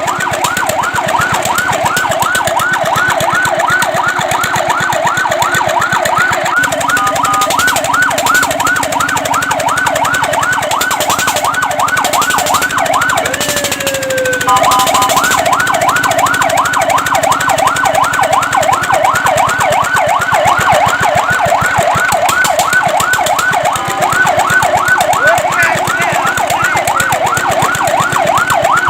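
Fire truck siren in a fast yelp, its pitch sweeping rapidly up and down several times a second. It breaks off briefly a few times, once for a single slow falling sweep near the middle.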